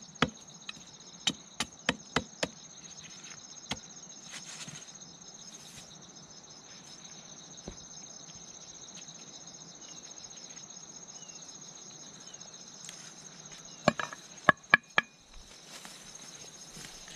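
Machete chopping a wooden stick: a quick run of sharp blows, about three a second, in the first two and a half seconds, then a cluster of four or five loud knocks, some ringing, a little before the end. Insects chirr steadily in the background.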